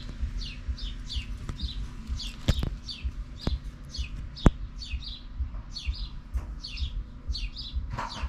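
Newly hatched chicks peeping under a broody hen: a steady run of short, high, falling peeps, about two a second. A few sharp clicks sound among them, the loudest about four and a half seconds in.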